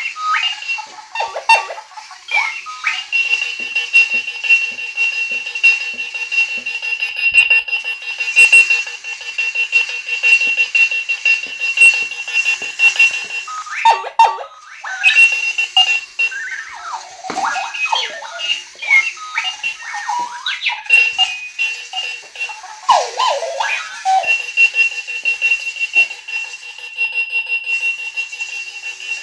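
Novelty electronic alarm clock going off: a shrill, fast-pulsing tone that breaks off several times for bursts of wavering, sliding sounds, then starts again.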